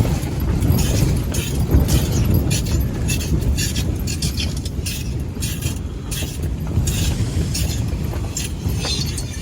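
Strong gusting wind buffeting the microphone with a deep rumble. Irregular short rustles and rattles sound over it.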